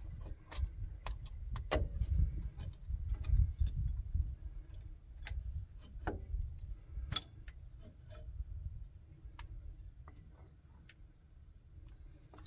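Scattered sharp clicks and clinks of parking brake cable hardware being handled, over a steady low rumble. A short high bird chirp sounds near the end.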